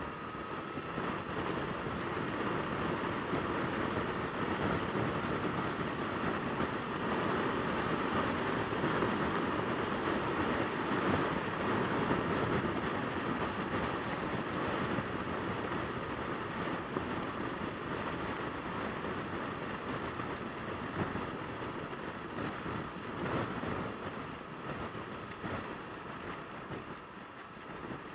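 Yamaha YZF600R Thundercat inline-four sportbike running at motorway cruising speed, heard through a steady rush of wind and road noise. The noise swells over the first couple of seconds and eases a little toward the end.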